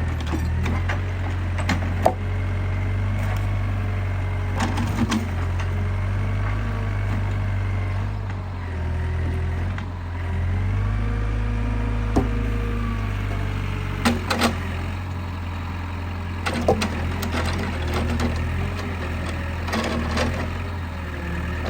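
Excavator's diesel engine running steadily, with a faint whine that glides up and down in pitch, and hard wooden knocks several times as logs are gripped and set down.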